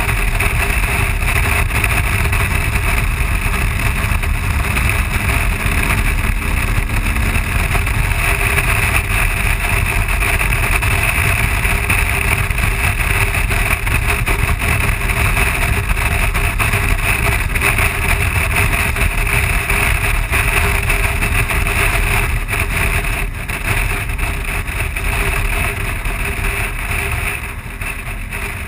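Steady rush of wind and road noise from a BMW R1200 GS boxer-twin motorcycle riding at highway speed, heard from the bike itself. The noise eases toward the end as the bike slows.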